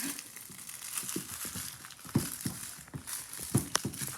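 Rustling and crinkling with scattered light knocks and clicks, a few sharper knocks about two seconds in and again later, as 8-week-old standard poodle puppies play and tussle with their toys.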